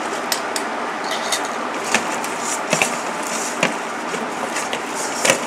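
A hand mixing cauliflower florets in a wet batter in a stainless steel bowl: scattered light clicks and knocks against the bowl, over a steady background hiss.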